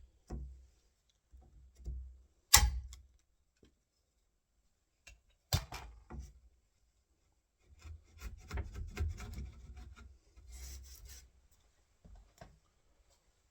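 Wood chisel cutting the latch recess into a door edge: two sharp taps about two and a half and five and a half seconds in, then a few seconds of scraping and paring at the wood.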